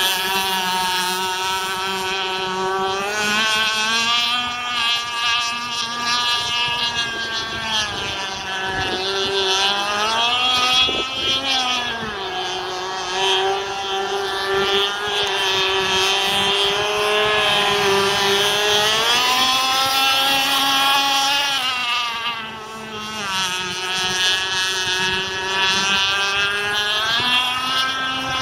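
Redline full-mod Zenoah two-stroke petrol engine of an Insane Cat gen 2 RC racing boat running at high speed, its note rising and falling several times.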